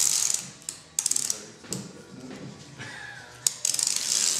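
Clear packing tape pulled off the roll in long stretches, giving a rasping, ratchety peel as the tape unwinds. It is loud at the start, falls away into a few scattered clicks, and starts again sharply about three and a half seconds in.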